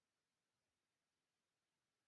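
Digital silence: only a faint even hiss.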